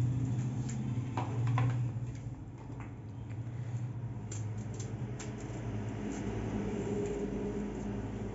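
A knife paring thick galgal peel makes light clicks and scrapes, a few sharper ones between one and two seconds in, over a steady low hum.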